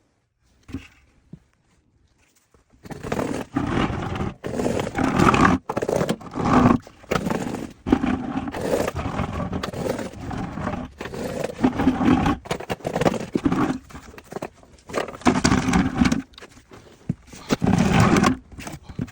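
Repeated loud scraping and scuffing in a cramped crawlspace, in irregular bursts of about a second with short breaks: a person crawling on a low scooter and dragging buckets over the ground. Two brief knocks come first, about a second in, before the scraping starts.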